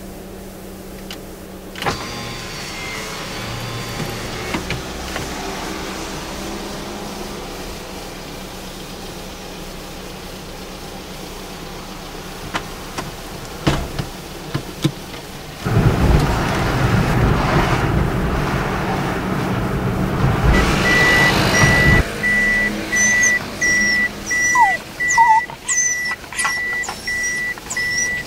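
Car cabin noise while driving, with a louder rush of noise for about six seconds in the second half. Then a steady series of evenly spaced in-car beeps starts and keeps repeating as the car parks on arrival, in the manner of a reversing warning beep.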